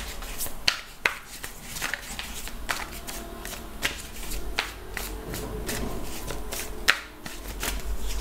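A deck of tarot cards shuffled hand to hand, giving a run of irregular sharp card snaps.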